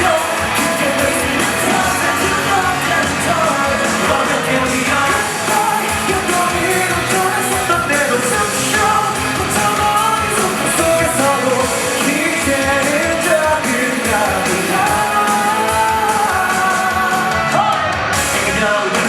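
A rock band playing live, loud, with a voice singing the melody over a steady drum beat and guitars.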